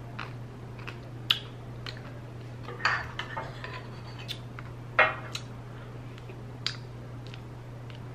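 Metal spoon clinking and scraping against a bowl while scooping ice cream: about six separate sharp clinks, two of them ringing briefly.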